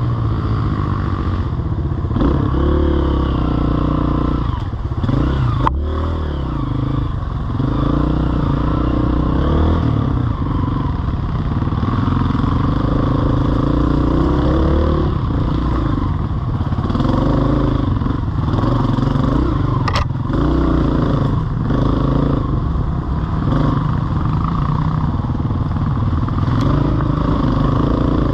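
Off-road vehicle engine being ridden, its pitch rising and falling again and again as the throttle is opened and closed, with a sharp knock about six seconds in and another near twenty seconds.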